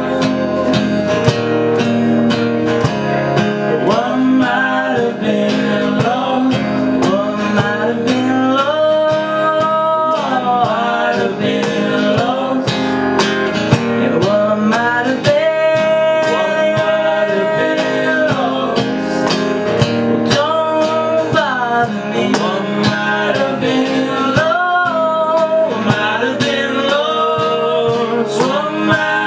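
Live acoustic guitar strummed while men sing together at microphones.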